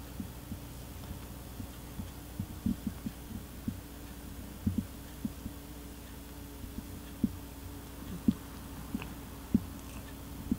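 Cat purring, a steady low throbbing hum, with irregular soft clicks and taps from a tabby cat licking a black cat's fur as it grooms it.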